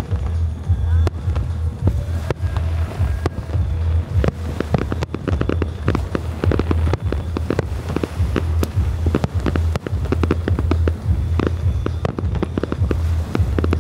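Aerial fireworks going off in a rapid run of crackling pops and bangs, growing dense about five seconds in, over a steady deep rumble.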